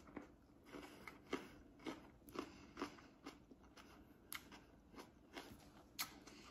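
Someone chewing a bite of raw sweet mini bell pepper: faint crunches, about two a second.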